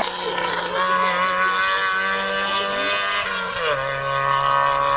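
Rally car's engine running at high revs with a steady note, dropping to a lower steady note about three and a half seconds in.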